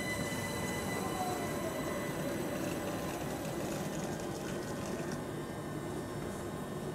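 London Overground Class 378 electric train braking to a stop at the platform: a whine that falls in pitch as it slows, over a steady rumble of wheels on the rails. The higher noise eases off after about five seconds as the train comes to a halt.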